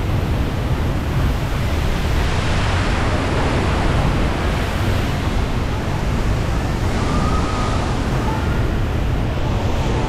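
Waterfall pouring steadily into its pool: a loud, even rush of falling water.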